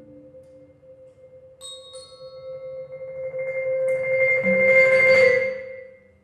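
Live instrumental ensemble music. A steady held tone runs throughout, bell-like ringing tones join about a second and a half in, and a shimmering swell builds to a peak about five seconds in, then fades away.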